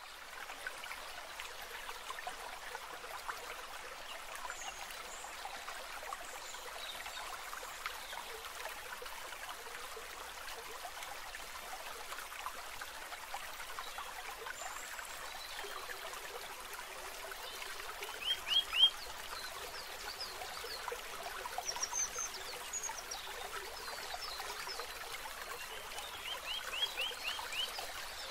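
A steady rushing, trickling noise like running water, with brief high chirps in quick runs of three to five, twice.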